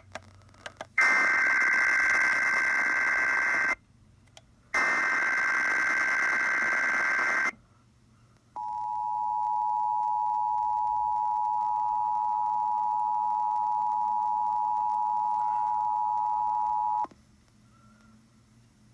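Emergency Alert System test tones on a radio broadcast. First come two harsh buzzing bursts of the digital SAME header data, each about three seconds long with a one-second gap between them. Then the EAS attention signal plays: a steady two-tone beep (853 and 960 Hz) held about eight and a half seconds, which cuts off abruptly.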